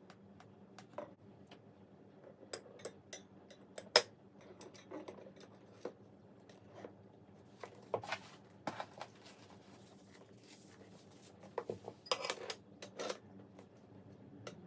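Scattered clicks, clinks and knocks of small metal parts and tools being handled, with a sharp knock about four seconds in and bursts of clattering near the middle and toward the end, over a faint steady hum.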